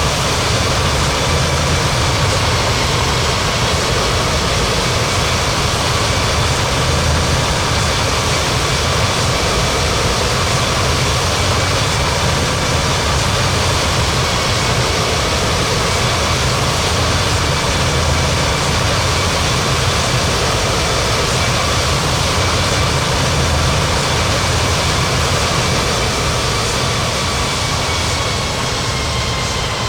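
Airbus A330-300 jet engines running steadily with a held whine, the pitch and level dropping slightly near the end.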